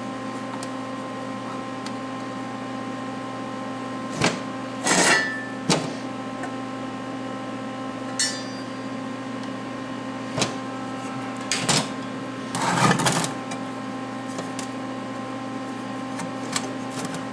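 Steel parts and a clamp being handled and adjusted: a handful of sharp metal clanks and short rattling clatters, bunched in the middle of the stretch, over a steady electrical hum.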